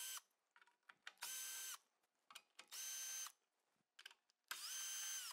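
Milwaukee cordless drill-driver backing screws out of a sheet-metal guard, spinning in short runs: one ends just after the start, then three more follow about every second and a half, each whine rising to speed and winding down. Faint clicks come between the runs.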